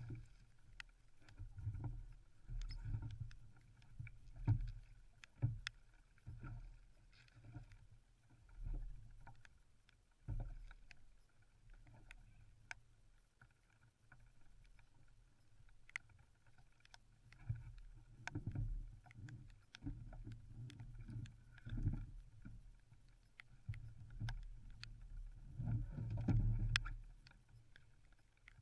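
Irregular low thumps and knocks on a plastic fishing kayak, with short sharp clicks, as a striped bass is landed, lifted aboard and handled; water splashes at the start.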